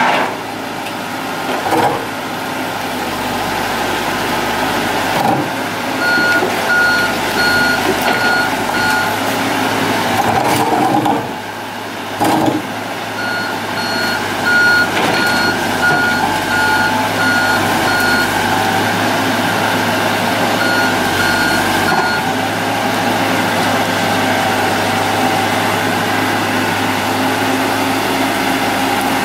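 Heavy diesel machinery running steadily as an excavator is loaded onto a truck trailer. A reversing alarm beeps about twice a second in three spells.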